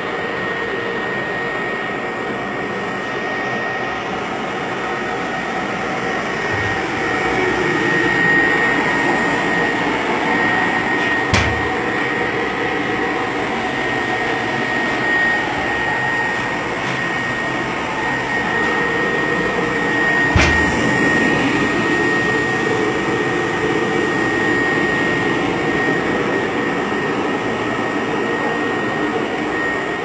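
Dry-cleaning machine running: a steady mechanical whir with a constant high whine, broken by two sharp clicks about nine seconds apart.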